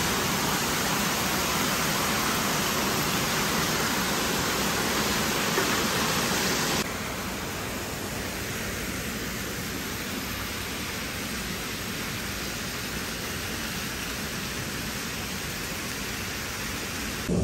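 Fountain water jets splashing into a pool, a steady hiss of falling water. About seven seconds in it cuts abruptly to a quieter, duller steady rush of noise.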